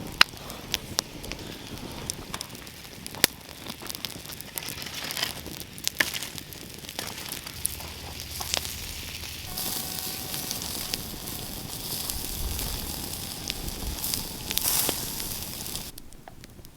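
Campfire crackling with frequent sharp pops, with brats sizzling over it. The hiss grows brighter from about ten seconds in, then cuts off suddenly near the end.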